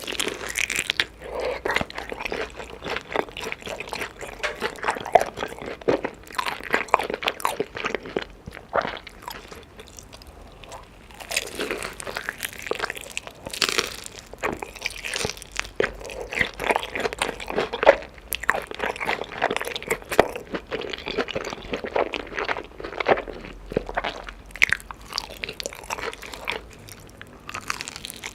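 Chicken being bitten and chewed: a dense run of crunching and crackling, with a short lull about ten seconds in.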